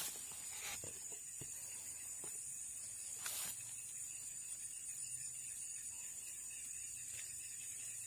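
Steady high-pitched buzzing of insects in the grass by a swamp ditch, with two brief brushing sounds, about a second in and again after three seconds.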